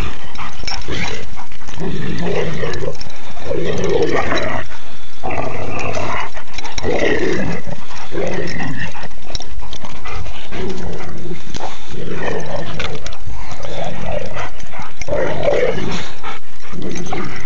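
A Labrador retriever growling and whining in play, a loud, nearly unbroken string of grumbling, moaning vocalizations that rise and fall in pitch: play-growling over a ball the dog is keeping from another dog.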